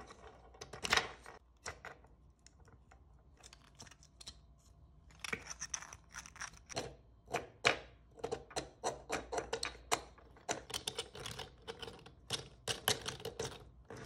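Plastic clicking and clattering from the joints of a 3D-printed articulated T-rex as its jaw, legs and segmented tail are flexed by hand. Rapid short clicks come in bursts, busiest through the second half.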